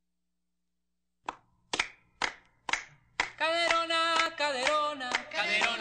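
Four sharp hand claps, about two a second, then a singing voice comes in with long held notes: the opening of a song.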